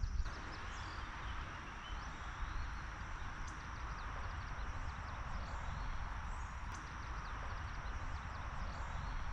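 Steady insect buzzing, a thin high tone, over an even hiss and a low wind rumble on the microphone.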